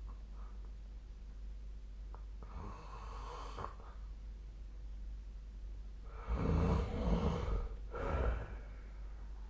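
A person snoring in their sleep. A soft breath comes about two and a half seconds in, then a loud snore at about six seconds, followed by a shorter snore a moment later.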